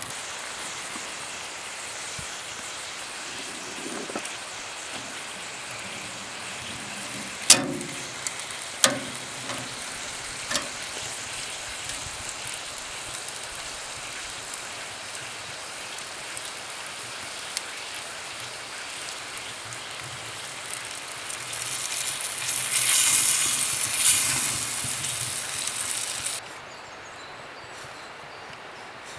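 Steady sizzling and crackle of food cooking over an open fire, with three sharp knocks between about eight and eleven seconds in. Near the end a louder sizzle swells for about five seconds and then cuts off suddenly.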